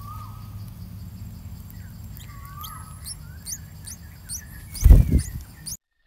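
Bulbuls calling at the nest: a few short whistled notes and a quick series of thin, high, rising chirps over a low steady hum. About five seconds in comes a loud thump and rustle as the adult bird leaves the nest.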